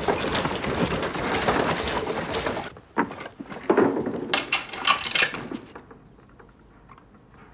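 Wooden handcart rattling over cobblestones. After a cut, a scatter of sharp knocks and clicks for a couple of seconds, then quiet.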